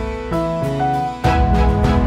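Instrumental background music: a melody of held notes, with a beat coming in a little past halfway.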